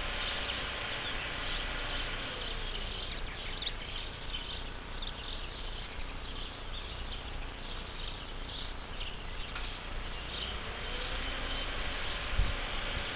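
Insects chirping in many short repeated bursts, high-pitched, over a steady low rumble, with a brief low thump near the end.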